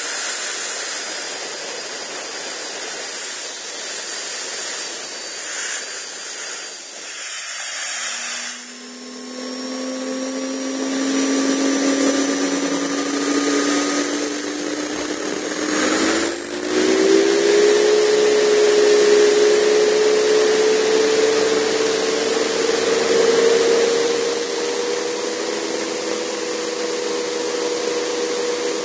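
Jetcat PTH-2 turbine of an RC turbine helicopter running, a loud rushing noise with a thin high whine. About a third of the way in, a lower hum comes in and climbs in pitch, falters briefly, then rises again and holds steady.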